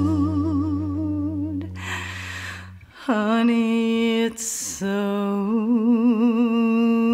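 Music: a slow melody of long held notes with vibrato, one over a low bass note and a second starting about three seconds in.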